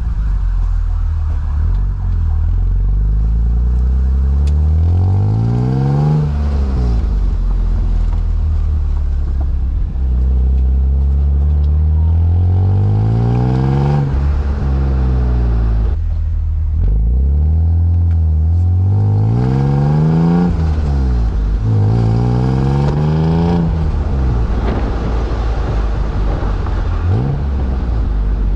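BMW M Roadster's S52 inline-six exhaust, heard at the tailpipes, accelerating through the gears: the note climbs in pitch and drops back at each of four upshifts, then settles into a steadier note near the end.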